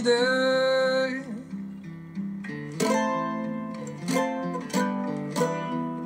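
A folk song about log drivers, sung with an acoustic guitar. The singer holds the last word of a line for about a second, then the guitar strums on alone.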